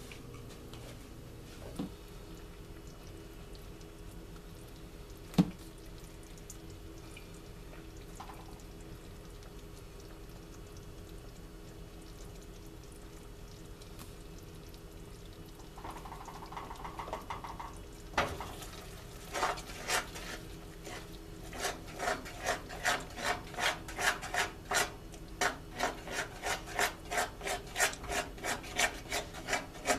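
A spoon stirring a thick chocolate and peanut butter mixture in a saucepan, scraping around the pan in regular strokes about two a second, from a little past halfway on. Before that there is only a faint steady hum and a couple of single knocks.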